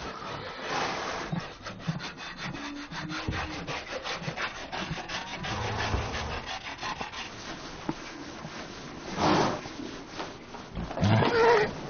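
A brush rubbing over a horse's coat in quick, repeated strokes, with two louder sounds near the end.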